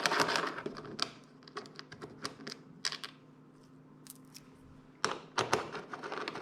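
Irregular light clicks and clinks of small metal motorcycle bolts and a hand tool being handled while airbox bolts are taken out. They are thickest at first, thin out in the middle and pick up again near the end.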